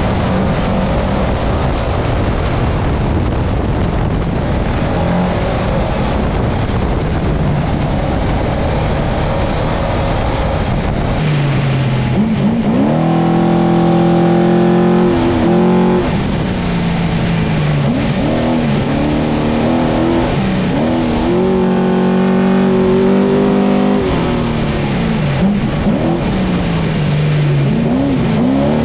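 Mason all-wheel-drive trophy truck's 1000-plus-horsepower engine running hard at speed, heard from the cockpit under heavy road and wind noise. About twelve seconds in the engine note comes through clearly, rising and dropping several times as the throttle is worked.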